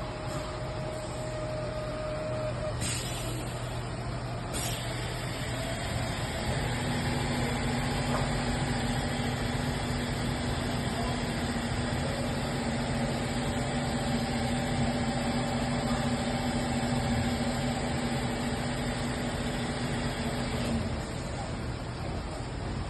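Fadal VMC 4020 HT vertical machining center running under power, a steady machine hum. Its tone shifts lower about six seconds in and that tone drops away near the end.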